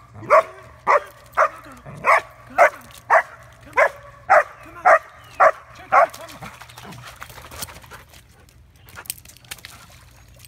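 A dog barking repeatedly and evenly, about two barks a second, stopping about six seconds in.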